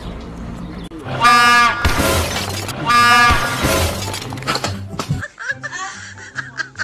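Two loud blasts of a train horn, each under a second long and about a second apart, over background music with a repeating bass line.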